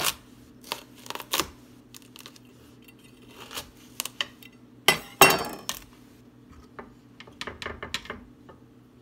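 Kitchen knife cutting through the hard rind of a spaghetti squash on a glass cutting board: a series of sharp clicks and knocks as the blade and squash strike the glass, loudest about five seconds in.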